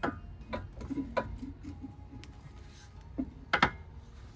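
Scattered clicks and knocks as the stock rock rail of a Jeep Wrangler JLU Rubicon is pulled and worked loose from the body, now that its bolts are out. The loudest two knocks come close together about three and a half seconds in.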